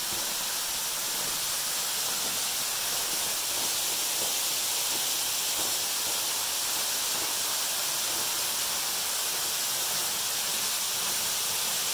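Waterfall pouring down a rock face, a steady, unbroken rush of water.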